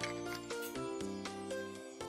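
Soft instrumental background music: a plucked melody over a bass line, changing notes about every half second.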